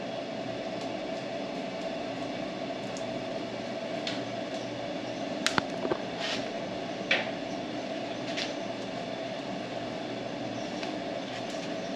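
Steady mechanical hum from a running machine, with a few sharp clicks about halfway through, from handling tools and wiring.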